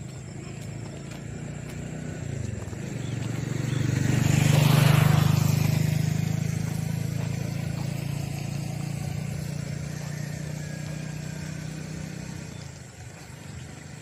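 A motor vehicle drives past on the road, its engine hum growing louder, loudest about five seconds in, then fading away over the next several seconds.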